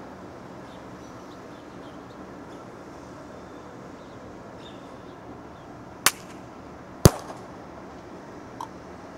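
Outdoor ambience heard from an apartment balcony: a steady background hum of the surroundings with faint high chirps, broken about six and seven seconds in by two sharp bangs, the second louder with a brief ring, then a smaller click near the end.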